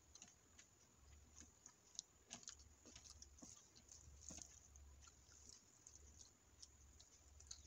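Fingers mixing biryani rice with curry on a plate: faint, irregular soft clicks and squishes.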